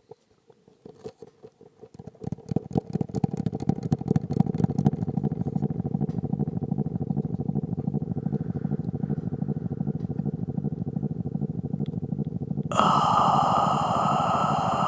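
Experimental noise music: scattered clicks speed up into a fast, steady buzzing pulse. Near the end a louder, harsh noise layer cuts in suddenly.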